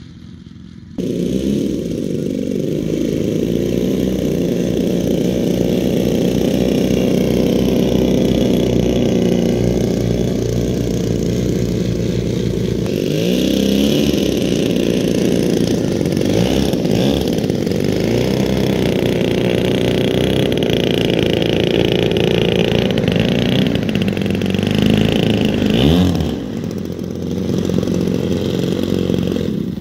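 Twin 38 cc gasoline engines of a large-scale RC OV-10 Bronco model running steadily at taxi power, rising in pitch briefly several times as the throttle is blipped.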